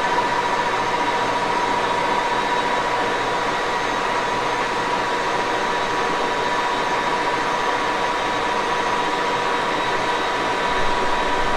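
1941 Axelson gear-head engine lathe running steadily, its gearbox giving a constant whine over the machine's running noise. A few low bumps come in near the end.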